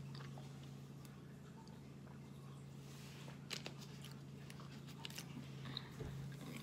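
Faint mouth sounds of sipping and swallowing from a drink bottle, then quiet chewing with a few small clicks, over a steady low hum.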